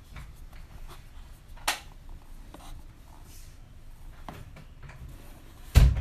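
Handling noise of a plastic mini humidifier being turned in the hand: soft rubbing and small clicks, a sharp click about a second and a half in, and a louder thump near the end.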